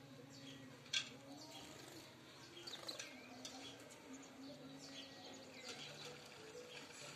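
House sparrows chirping in short, scattered calls, with a single sharp click about a second in, over a low steady hum.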